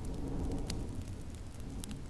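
Wood fire crackling, with a couple of sharp pops, over a steady low rumble of snowstorm wind.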